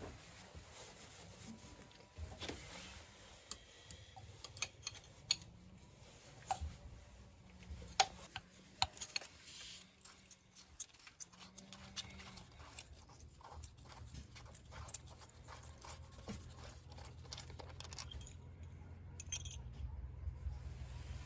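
Scattered light clicks and taps of hand work, coming irregularly with the sharpest about eight seconds in, over a low steady hum.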